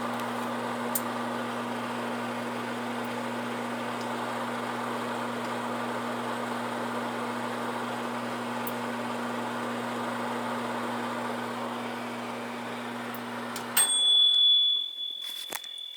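Microwave oven running with a steady mains hum, a few faint ticks over it as the light bulb inside heats. Near the end the oven stops abruptly and its high electronic beep sounds, followed by a couple of sharp clicks.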